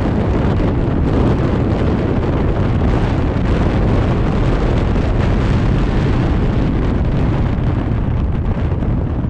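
Steady wind rush and road noise from a moving vehicle, with wind buffeting the microphone.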